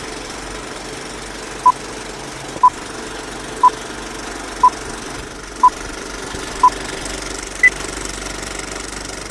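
Film projector sound effect: a steady mechanical running clatter. Over it plays a film-leader countdown: six short beeps a second apart, then a last beep a second later at a higher pitch.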